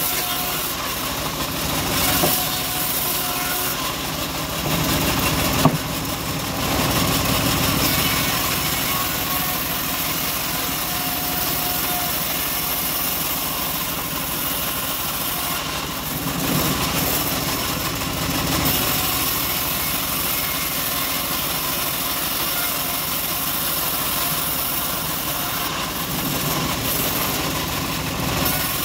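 Homemade band sawmill running steadily while its blade rips a long slab of old teak. A single sharp knock about six seconds in.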